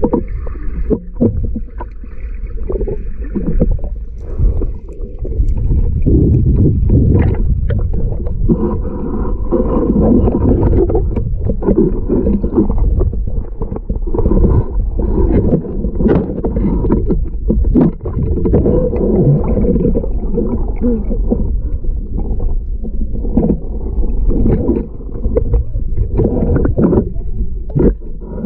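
Muffled underwater noise picked up by a submerged camera: a steady low rumble and gurgling of water and air, broken by scattered clicks and knocks.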